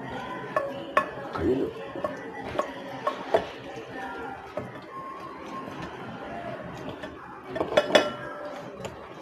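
Hands rubbing spice paste into raw chicken drumsticks in a glass bowl: soft handling of the meat with scattered light clicks and knocks against the glass, a quick cluster of knocks near the end being the loudest.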